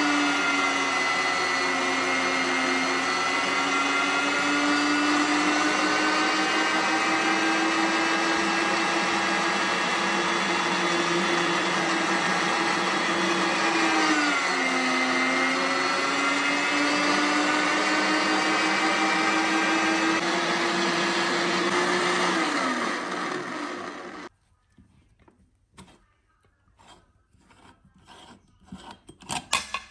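Electric meat grinder motor running steadily with a whine, its pitch dipping briefly about halfway through as the kinetic sand loads the auger, then winding down and stopping about four-fifths of the way in. Afterwards faint clicks and scrapes as the metal grinder head is handled.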